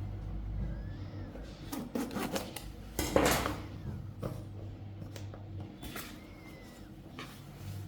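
Scattered knocks, taps and rubbing of objects being handled, with the loudest knock about three seconds in.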